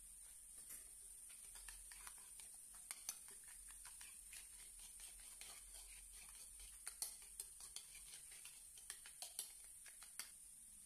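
A metal spoon stirring a thick creamy dressing in a glass bowl: faint, irregular clicks and scrapes of the spoon against the bowl, a few sharper taps about three and seven seconds in, over a steady faint hiss.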